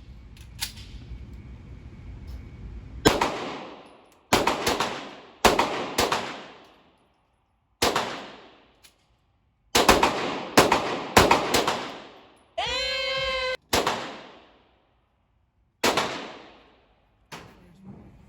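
About a dozen gunshots fired one at a time at irregular intervals on a shooting range, each sharp crack followed by a ringing tail that fades over about a second. A short pitched tone sounds briefly a little past the middle.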